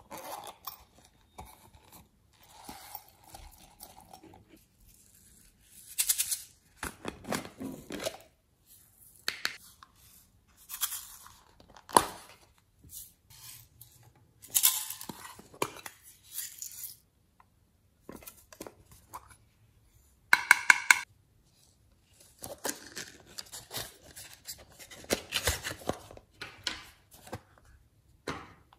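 Hands handling small plastic and silicone toys and their packaging: intermittent rustling, crinkling and scraping, with sharp clicks and a quick run of clicks about two-thirds of the way through.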